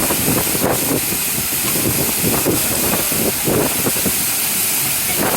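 Waterfall close by: falling water and spray making a steady, loud rushing hiss.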